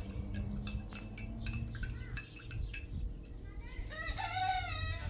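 A rooster crows once near the end, a single wavering call of about a second and a half. Before it come a run of light clinks, like dishes or cutlery being handled.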